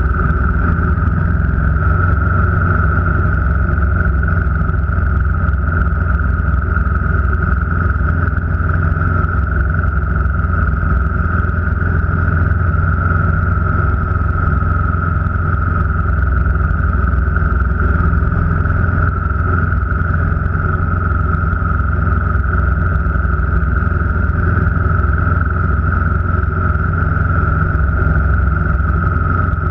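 Car driving at a steady speed: a constant low engine and road drone with a steady high-pitched whine over it.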